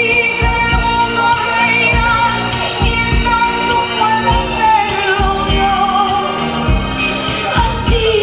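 Pop song with a woman singing over a steady beat, played loud.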